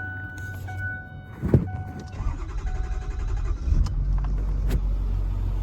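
A two-tone cab warning chime sounding on and off, a sharp knock like a door shutting about a second and a half in, then the truck's 6.4 L Power Stroke diesel running with a steady low rumble that becomes stronger about three and a half seconds in.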